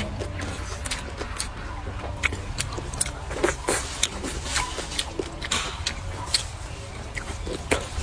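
Close-up eating sounds: chewing and biting with irregular small clicks and crackles, over a steady low hum.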